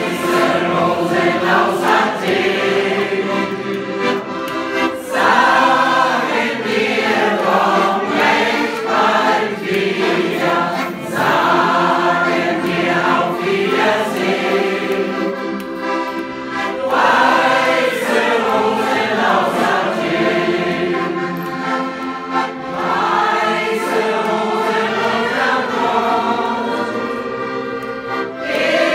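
A women's shanty choir singing together, accompanied by an accordion.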